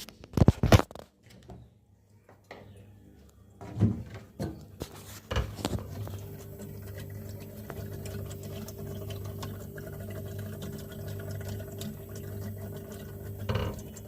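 A few loud knocks in the first second, then a steady electric hum that starts about five seconds in: a refrigerator compressor running. The fridge has a choked (blocked) refrigerant line.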